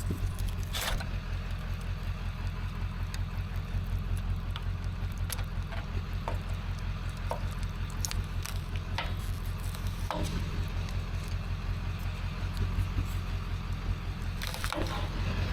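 Motor vehicle engine idling steadily, with scattered light metallic clicks and taps over it.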